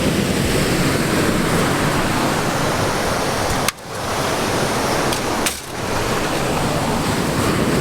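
Ocean surf and wind on the microphone: a steady rush, broken by two short drops about four and five and a half seconds in.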